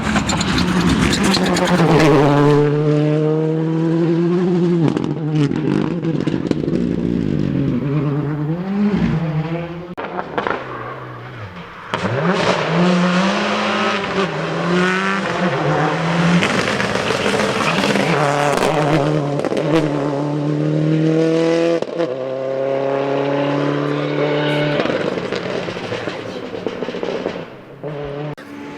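Rally cars at full throttle on a special stage, one after another. Engines rev hard with repeated rises and drops in pitch through gear changes and lifts, and a sudden change about twelve seconds in as the second car comes through.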